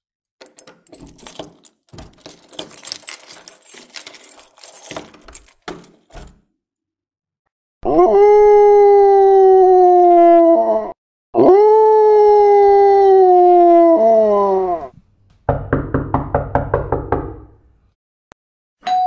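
Recorded sound clips played back for a dog. First comes a few seconds of irregular crackling and clicks. Then two long canine howls, each rising quickly and sliding slowly down in pitch, and the howls are the loudest part. After them comes a short fast run of pulses.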